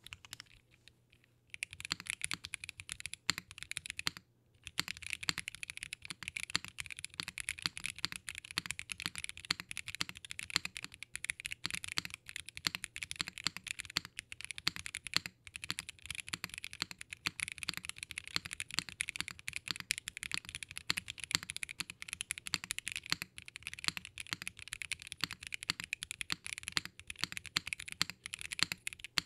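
Fast, continuous typing on a GEONWORKS F1-8X mechanical keyboard with lubed Durock Cherry Blossom linear switches (POM housings, Cherry MX Red stems), GMK doubleshot ABS keycaps, an aluminium leaf-spring plate and no foam. The keystrokes start about a second and a half in and stop briefly around four seconds in.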